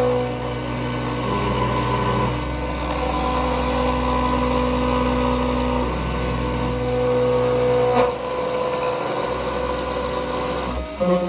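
Small desktop CNC router milling a roughing pass: the spindle motor runs steadily while the stepper motors whine, their tones stepping to new pitches every second or few as the axes change direction and speed. A brief sharp click about eight seconds in.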